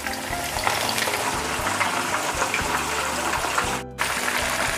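Tilapia deep-frying in a pan of hot oil: a steady crackling sizzle of bubbling oil around the fish, which cuts out briefly about four seconds in.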